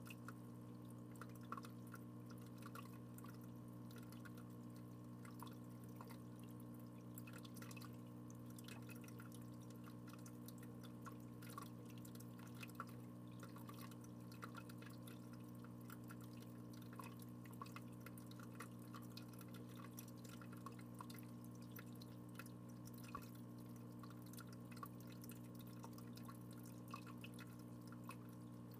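Faint steady hum with soft, irregular water drips and small clicks scattered throughout, as from a running aquarium.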